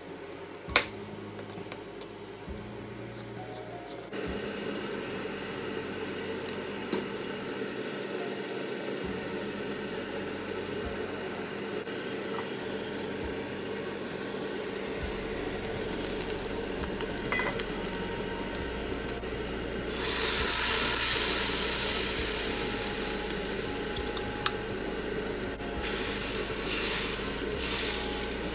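Blended capsicum and onion curry paste dropped into hot oil in a stainless steel wok, sizzling loudly all at once about two-thirds of the way through and fading over several seconds. Scattered taps and scrapes against the wok follow, over a steady low hum.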